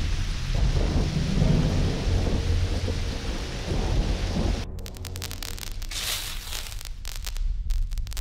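Heavy rain with rolling thunder rumbling underneath. About four and a half seconds in the storm cuts off abruptly, giving way to a crackling, buzzing electrical sound like sparks.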